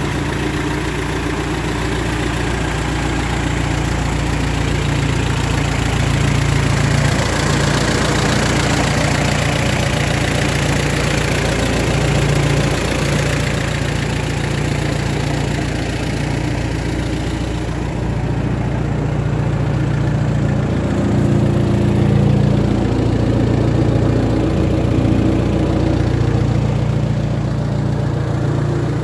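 Minneapolis-Moline GTA vintage tractor's four-cylinder engine idling steadily.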